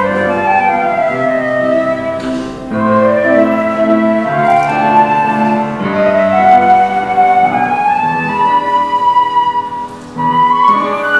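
Live instrumental music: a sustained melody line gliding from note to note over chords held low, with a brief pause between phrases about ten seconds in.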